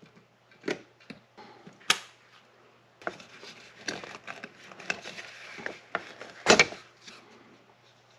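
Small clicks and clinks as snap-ring pliers pry a snap ring out of a string trimmer head's hub, then plastic parts of the head rustling and knocking together as they are pulled apart. The louder knock comes after about six seconds.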